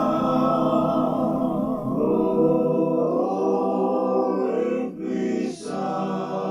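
Music with singing voices holding long notes.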